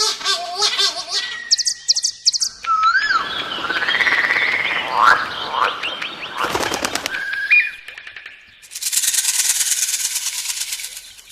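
A run of different bird calls and chirps that change every second or two, with whistled notes rising and falling and rapid repeated notes. It ends with a few seconds of dense, steady high hiss.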